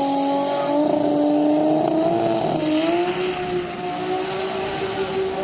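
Turbocharged 2JZ inline-six in a Toyota Celica drag car launching and pulling away down the strip. The engine note climbs slowly in pitch, steps up about three seconds in, and gets a little quieter as the car moves off.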